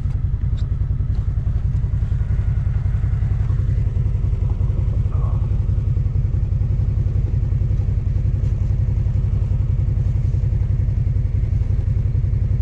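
An engine running steadily at an even idle, with a rapid, regular low pulse.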